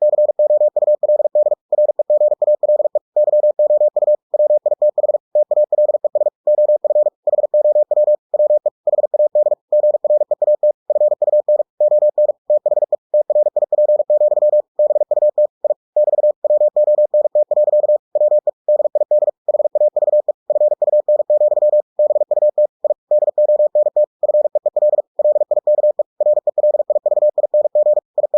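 Computer-generated Morse code (CW) sent at 45 words per minute: a single steady mid-pitched tone keyed in very rapid dits and dahs, with brief gaps between words.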